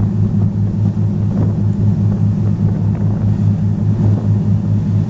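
Motor yacht's engines running steadily under way, a low drone that pulses evenly a few times a second, over the rush of water from the wake along the hull.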